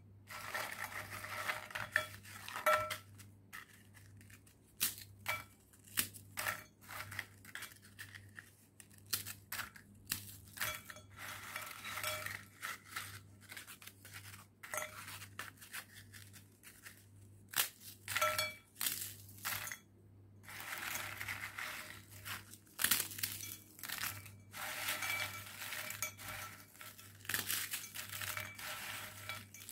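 Dry, crisp biscuits snapped and crushed by hand into a ceramic bowl: an irregular run of sharp cracks and crunches, with broken pieces clinking on the bowl. There is a brief lull about twenty seconds in.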